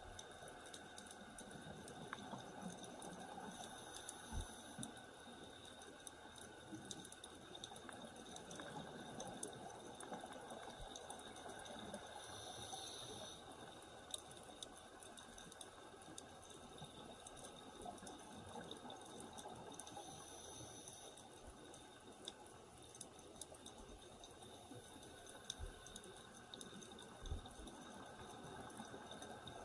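Faint, muffled underwater ambience picked up by an action camera on a dive: a steady watery hiss with scattered small clicks and a few dull knocks. Two short swells of higher hiss come about twelve seconds in and again around twenty.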